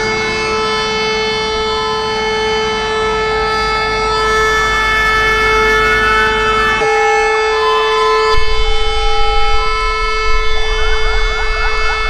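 Several fire engine sirens sounding together, several steady tones held at once over a low engine rumble. A slow rising and falling wail comes in the middle, and near the end a fast yelp sweeps about four to five times a second.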